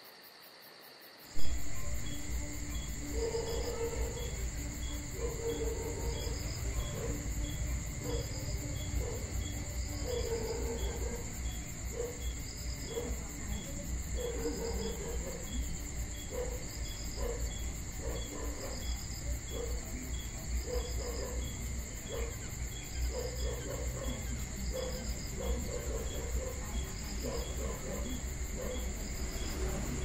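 Night insect chorus of crickets: a steady high trill with quicker and slower repeating chirps over it, and a low rumbling noise underneath. About a second in, a sharp click, and the whole sound jumps louder.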